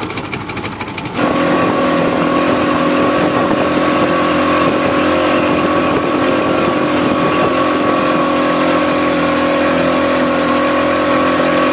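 Boat's outboard engine. It ticks over at low speed for about a second, then jumps suddenly to a loud, steady run at speed, over the rush of the wake.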